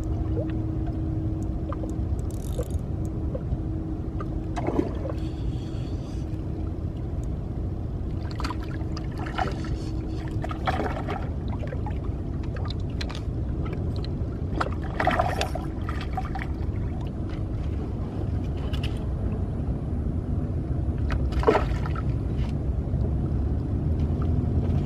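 Steady low rumble, likely wind and water at the shoreline, with a faint steady hum through the first half. Several short scrapes and splashes come as a fish is reeled in on a light spinning rod and landed.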